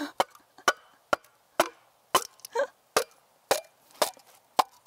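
Bamboo pole splitting under a hand-pressed multi-blade bamboo splitter, giving sharp cracks about twice a second as the blades are forced down and the pole splits into strips.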